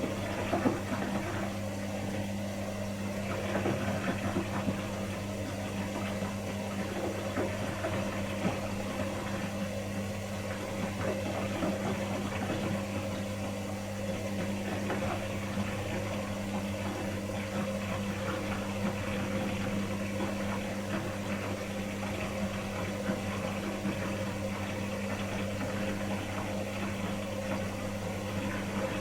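Pro Action PRSLG96W slimline dishwasher running mid-cycle: a steady hum from its wash pump motor with water spraying and splashing inside the tub.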